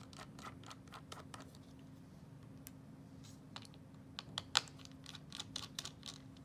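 Irregular light clicks and scrapes of a small hand tool and fingertips on the open MacBook Pro's metal chassis and battery, in two loose clusters, over a faint steady hum.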